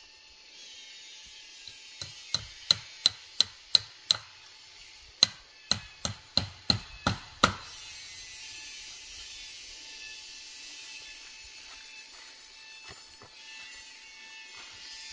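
Repeated sharp knocks, about three a second, in two runs of about seven strikes each with a short pause between. After them comes a steady hiss.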